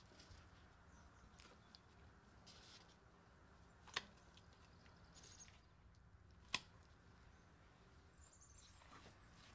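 Raw chicken pieces being laid by a gloved hand into a stainless steel bowl of marinade: faint, quiet handling noises with two sharp knocks against the bowl, about four seconds in and again a couple of seconds later.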